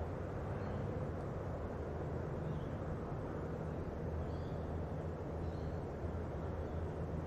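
Distant diesel freight locomotives working hard up a steep grade: a steady low engine drone.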